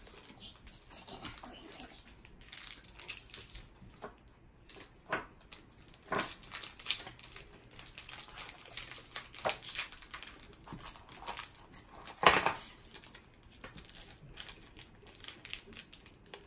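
A Topps baseball card pack wrapper crinkling and rustling in a child's hands as it is opened and the cards are slid out, in irregular crackles with one sharper crackle about three-quarters of the way through.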